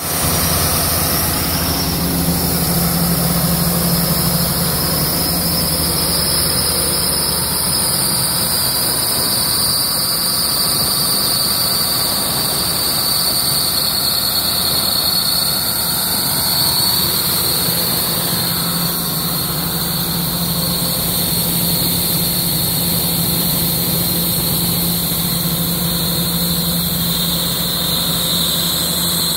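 Ingersoll Rand VHP400WIR portable air compressor running steadily on its inline-six diesel engine, with a steady high-pitched whine over the engine note.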